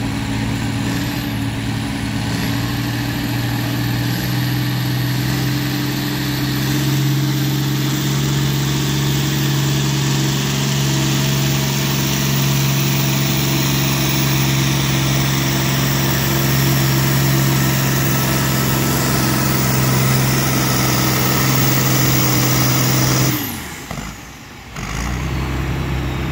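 John Deere diesel tractor engine running hard at a steady, unchanging pitch while pulling a weight-transfer sled. About 23 seconds in the engine note drops off suddenly, then comes back quieter about a second and a half later.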